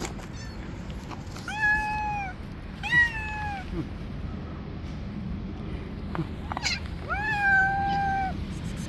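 Stray cat meowing three times, each meow long and drawn out at a steady pitch, with a brief sharp noise just before the third.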